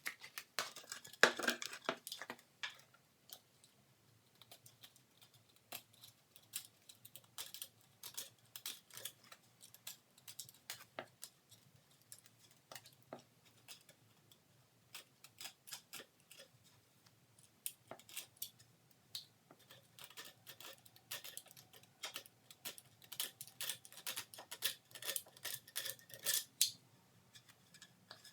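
Self-adhesive sandpaper being trimmed around the edge of a 12-inch sanding disc: irregular crisp snips, clicks and scrapes, busier about a second in and again in the last few seconds.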